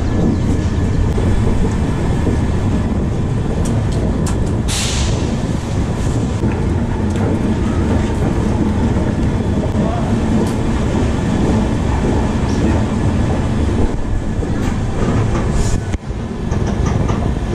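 Indian Railways express train running along the line: a steady, loud rumble of wheels on rail with scattered clicks, and one short hiss about five seconds in.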